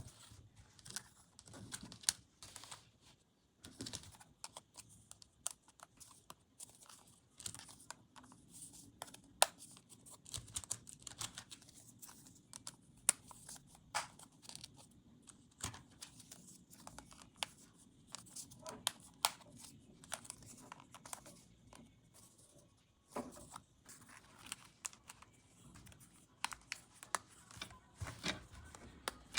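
Toy packaging being unpacked by hand: plastic wrapping torn and crinkled, with many small, irregular clicks and taps of plastic pieces.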